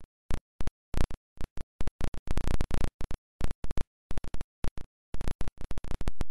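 Music breaking up into short fragments cut by dead silence, stuttering on and off with the gaps shortening toward the end, like a recording dropping out.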